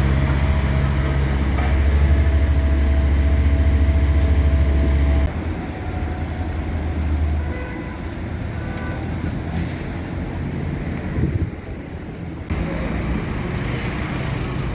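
A heavy vehicle engine runs steadily and close by, then cuts off abruptly about five seconds in, leaving lighter street traffic noise.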